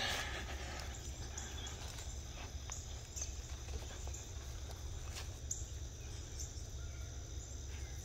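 Quiet outdoor ambience: a steady low rumble of wind or handling on the microphone, with a few faint, short high chirps scattered through.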